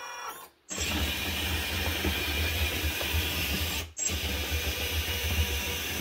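1/14-scale LESU 850K RC dozer running: a steady whir of its small electric motors and hydraulic pump, with a low hum underneath. It cuts out briefly about half a second in and again near four seconds.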